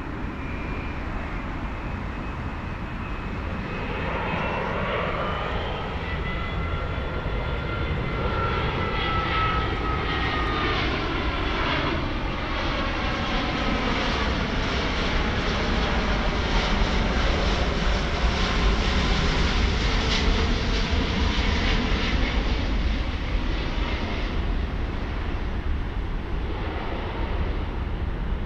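Boeing 787-9's Rolls-Royce Trent 1000 turbofans on final approach, passing low overhead with gear down: a steady jet rumble with whining tones that slide down in pitch as the plane draws near. The sound is loudest about two-thirds of the way through, then eases slightly as it moves away.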